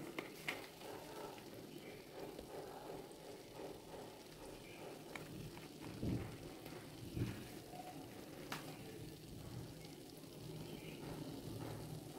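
Faint crackling sizzle from a nonstick pan of rice on the stove as small lumps of ghee are dotted onto the hot rice, with a few light clicks and two soft knocks about six and seven seconds in.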